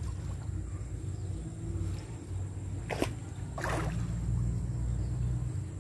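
River water sloshing and splashing around people wading neck-deep, with a sharp splash about three seconds in and a short rush of water just after. A low steady rumble runs underneath.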